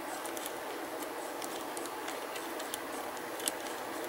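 Light, irregular metallic ticks and clicks from a disc detainer pick turning the discs of a Teshan disc detainer padlock back to their zero position, over a steady background hiss.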